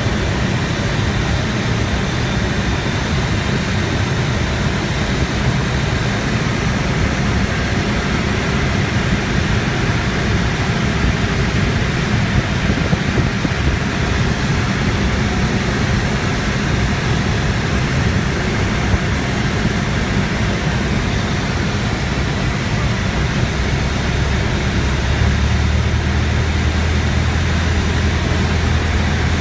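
Cessna 172's piston engine and propeller droning steadily, heard inside the cockpit along with air rushing past, during the descent to land. Near the end the deep engine note grows stronger.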